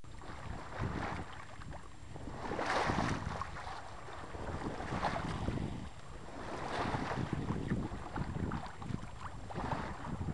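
Wind rushing over the microphone in gusts that swell and fade every couple of seconds, on the deck of a sailboat under sail, with water washing along the hull beneath it.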